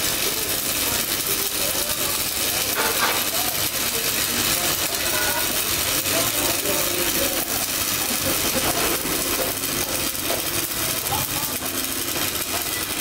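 Electric arc welder's arc sizzling and crackling steadily as a bead is laid on a steel truck wheel rim, welding in a replacement plate to repair a broken rim.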